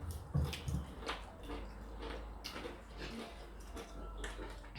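Faint, scattered clicks and taps over a low steady hum.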